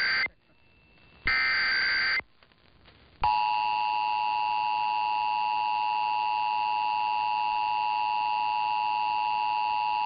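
Emergency Alert System monthly test heard over AM radio. The end of one SAME header data burst is followed by a short gap and a second warbling data burst of about a second. About three seconds in, the steady two-tone EAS attention signal (853 and 960 Hz) begins.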